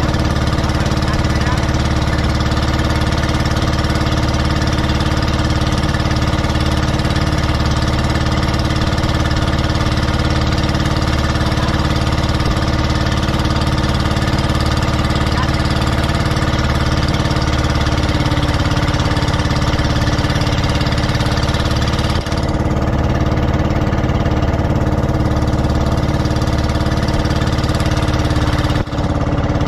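Motorized outrigger boat's (bangka's) engine running steadily at a constant speed, with a low, even drone.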